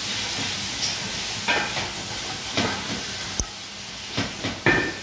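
Food frying in oil in a stainless steel pot, with a steady sizzle. A spoon scrapes and knocks against the pot about five times as it is stirred.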